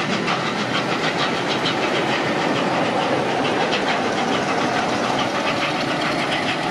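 Steam-hauled train pulling away behind Flying Scotsman: a steady rolling rumble with a rapid, even clicking, several times a second.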